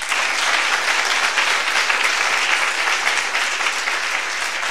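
Audience applauding: many hands clapping together in a dense, steady applause.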